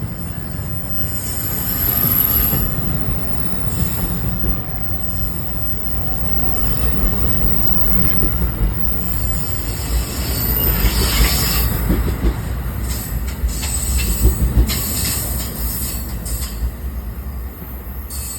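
Bombardier Multilevel passenger coaches rolling past as the train pulls away, a steady low wheel-and-rail rumble. Brief high-pitched wheel squeals come about two seconds in and again later, and a run of rail-joint clicks sounds in the second half.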